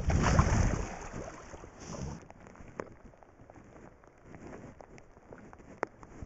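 Shallow river water splashing and sloshing as a chum salmon is let go, loud for about the first two seconds, then dropping to a faint watery hiss with scattered light ticks and one sharper tick near the end.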